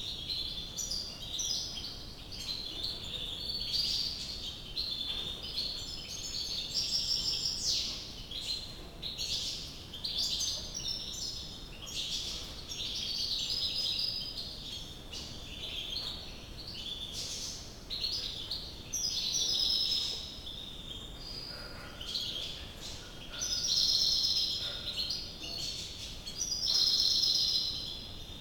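European goldfinch twittering song: a steady run of quick, high, tinkling notes, with louder phrases near the end.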